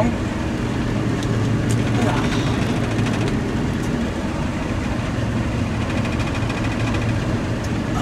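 John Deere combine running, a steady low machine drone heard from inside the cab.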